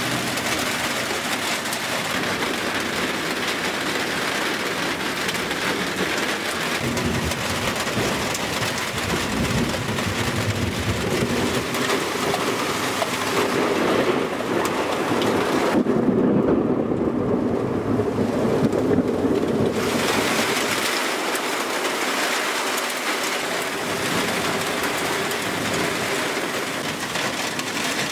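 Heavy steady rain falling on a deck and pavement during a thunderstorm. Rolling thunder rumbles underneath, building from about a quarter of the way in and loudest a little past the middle.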